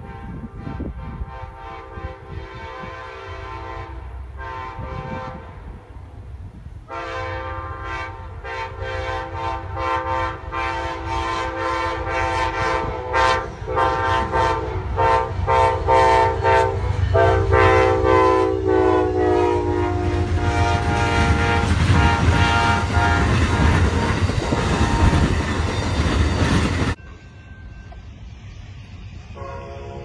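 Amtrak GE Genesis diesel locomotive's multi-note air horn played as a horn show: a long run of short toots and held blasts, growing louder as the train approaches, the chord dropping in pitch as it goes by. The loud rush and clatter of the passing train follows, then after a cut a fainter horn starts near the end.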